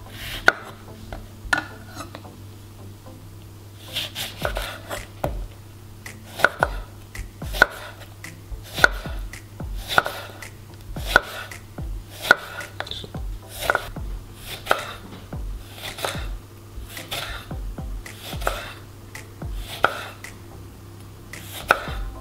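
Kitchen knife slicing a lemon into rounds on a wooden cutting board: the blade knocks on the board with each cut, about two cuts a second after two slower cuts at the start.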